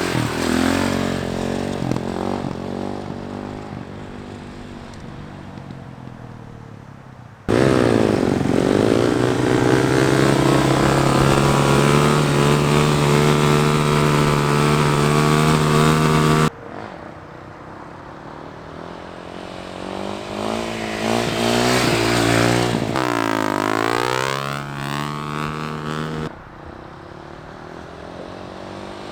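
Dirt bike engines revving and running hard during wheelies, the pitch climbing and dropping with the throttle. The sound cuts abruptly between clips about seven and a half seconds in, again at sixteen seconds and near the end. The middle stretch is the loudest, one bike held at a steady high rev close to the microphone.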